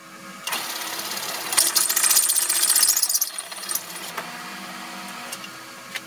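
Old floor-standing drill press running, its 21/32-inch bit cutting into half-inch steel plate. The cutting noise builds from about half a second in, is loudest from about one and a half to three seconds in, then eases off as the machine runs on.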